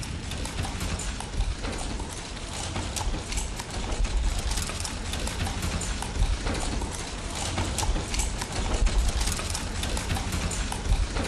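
Hooves of several horses clip-clopping on a paved street: a dense, steady run of clops over a low rumble.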